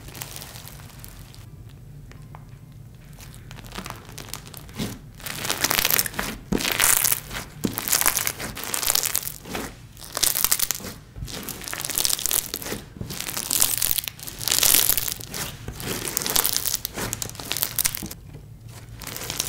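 Sticky slime mixed with slushy beads being squeezed and kneaded by hand, making squishing sounds. After a quieter first four seconds, the squishes come in short bursts about once a second.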